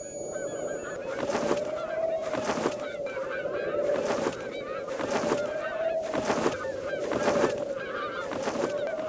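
Flock of Canada geese honking overhead: many overlapping short honks over a steady hum, with a swelling whoosh about once a second.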